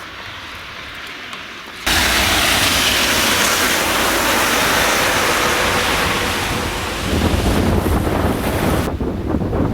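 Blizzard wind blowing hard and buffeting the microphone. A loud rushing noise starts abruptly about two seconds in, and heavier low buffeting comes in near the end.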